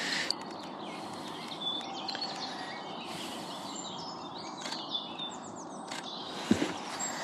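Small birds chirping and singing all around over a steady outdoor background, with a few short clicks. About six and a half seconds in, a brief low knock is the loudest sound.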